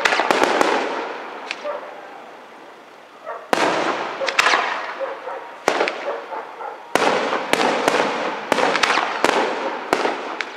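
Aerial firework shells bursting in rapid volleys: sharp bangs, each followed by a crackling trail. There is a brief lull about two seconds in, and a fresh volley of bangs starts at about three and a half seconds.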